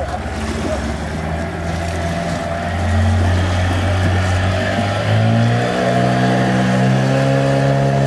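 Small boat's outboard motor running at low speed, then throttled up about five seconds in, its pitch rising and then holding higher as the boat gets under way.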